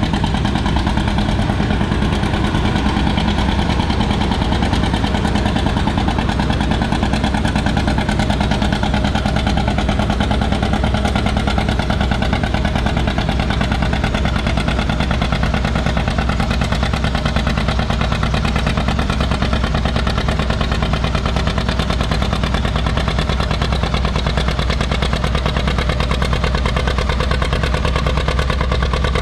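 John Deere 720 two-cylinder tractor engine running steadily and loudly at a tractor pull.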